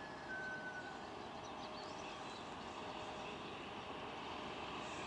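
Faint steady outdoor background noise with a distant hum and a few short high bird chirps about one and a half to two seconds in.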